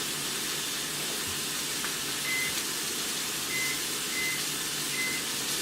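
Microwave keypad beeping four times as the cooking time is punched in, over the steady sizzle of sausages frying in a pan.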